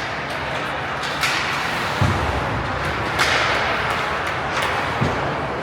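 Ice hockey play: skate blades scraping on the ice several times over a steady rink hum, with a thud about two seconds in, as of a puck or body hitting the boards.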